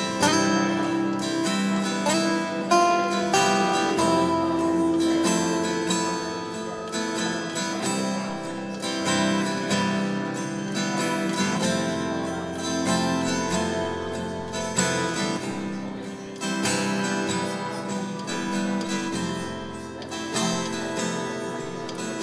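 Acoustic guitar played solo: a steady run of picked notes with chords ringing under them.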